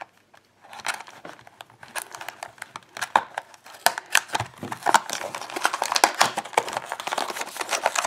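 Cardboard box and plastic blister packaging crinkling and rustling with many small clicks as it is pried open by hand. The sound starts about a second in.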